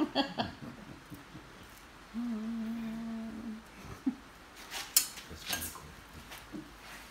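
A person humming one steady note for about a second and a half. A couple of sharp clicks or knocks follow about five seconds in.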